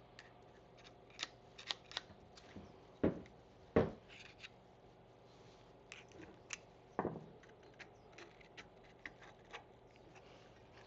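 Small steel parts of a hand ratchet being handled and fitted: scattered light metallic clicks, with louder knocks about three and four seconds in and again near seven seconds.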